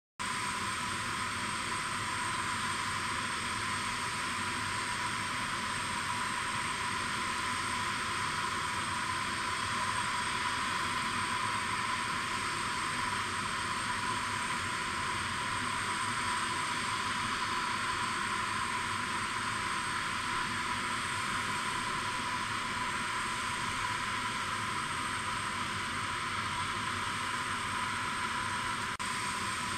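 Aircraft auxiliary power unit running steadily: a rushing hiss with a constant high whine on top.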